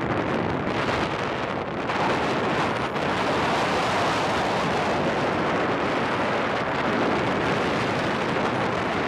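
Steady rush of airflow buffeting the microphone of a camera carried by a paraglider pilot in flight, slightly louder from about two seconds in.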